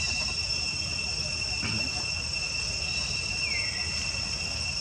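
Steady, unbroken high-pitched insect drone, as of crickets or cicadas, over a low rumble, with one short falling chirp about three and a half seconds in.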